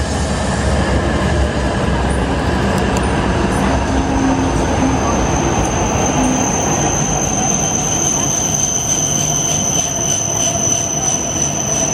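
E5 series Shinkansen train moving alongside a platform, a steady running noise with a high, steady whine that comes in about three seconds in.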